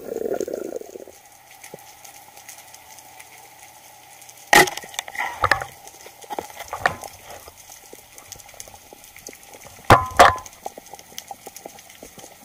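Underwater knocks and clicks of spearfishing gear: a sharp knock about four and a half seconds in, a few smaller clicks after it, and a close pair of sharp knocks near ten seconds, over a faint steady hum.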